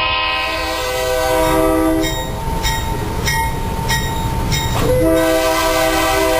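Diesel freight locomotive's multi-chime air horn blowing, breaking off about two seconds in and sounding again near the end with a short upward slur as it comes on. In the gap there is the rumble of the train and a regular clicking of wheels over rail joints.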